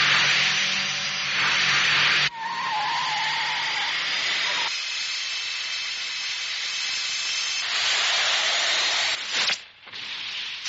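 Cartoon sound effect of Mini 4WD racing cars speeding along a track: a steady high whir and hiss, with a sudden shift about two seconds in, a wavering tone for a couple of seconds after it, and a brief dropout near the end.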